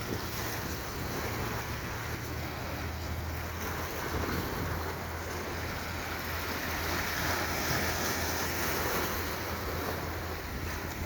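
Wind on the microphone and sea washing against the harbour, with a low steady hum underneath.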